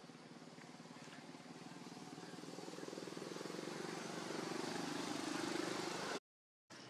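A motor vehicle engine running, growing steadily louder over several seconds, then the sound cuts off abruptly for a moment near the end.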